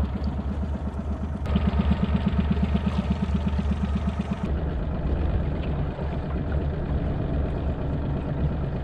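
Yamaha 40 hp four-stroke outboard motor running steadily at low trolling speed, an even low hum with a fast regular pulse.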